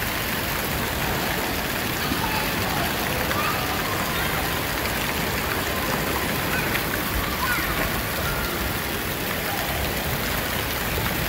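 Water spraying and pouring from the jets and spouts of an indoor water park play structure, a steady rush like heavy rain, with the voices of many children echoing in the hall behind it.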